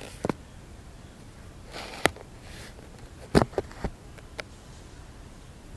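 Handling noise from a phone held close to the face: a few short clicks and knocks, spread unevenly, with a soft breath near the microphone about two seconds in.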